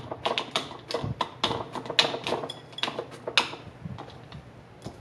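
Pieces of diced onion dropped by hand into glass mason jars, clicking and tapping against the glass in a quick irregular run for about three and a half seconds. Midway through one strike makes the jar ring briefly.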